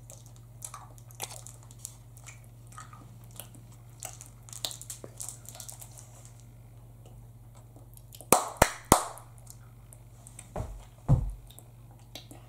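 A child noisily chewing and sucking a sour hard candy, with scattered wet mouth clicks and smacks. A little past the middle come three loud sharp smacks in quick succession, and near the end two dull thumps.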